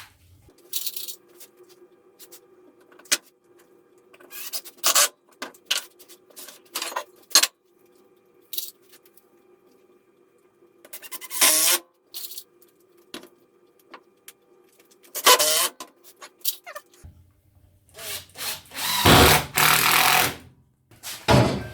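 Hand work on a jig at the workbench: scattered clicks and knocks as parts are handled and set in place, with several louder scraping bursts, the longest near the end. A faint steady hum runs under it and stops about 17 seconds in.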